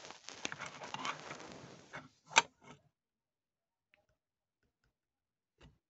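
Close-up handling noise: about two seconds of rustling and small clicks as a plastic toy and the phone are moved about, a single sharp click about two and a half seconds in, then near quiet with a light knock near the end.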